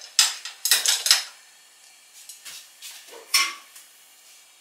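Kitchen utensils and dishes clattering and clinking as they are handled: a quick run of short knocks in the first second, then one more clink about three seconds in.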